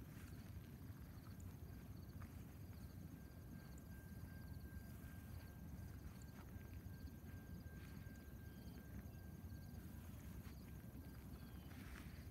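Quiet open-field ambience: insects chirping in small, evenly repeating pulses over a low, even rumble, with a faint thin steady tone through the middle part.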